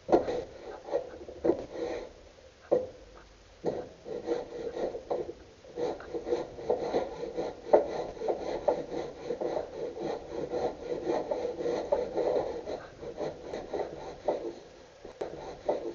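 Hand plane shaving along a wooden board in repeated strokes: a few separate knocks in the first seconds, then a quicker run of scraping strokes.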